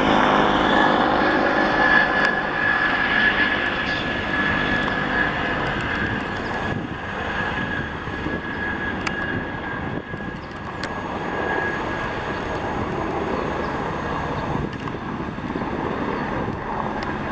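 Los Angeles City Fire Department helicopter flying away. The rotor and engine noise carries a steady high whine and grows fainter over the first several seconds, then holds at a lower level.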